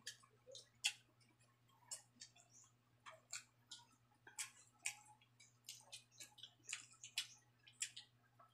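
Faint close-up mouth sounds of a person chewing food: irregular wet clicks and smacks, a few a second.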